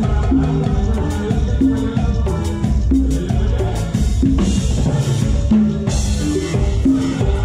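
Live band music with a pair of congas played close by, their hand strokes prominent over a steady drum beat and repeating low bass notes.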